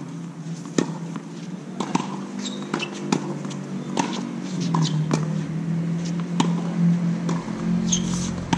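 Tennis balls being hit with rackets and bouncing on a hard court in a rally, sharp pops about once a second. A steady low hum runs underneath and gets louder about halfway through.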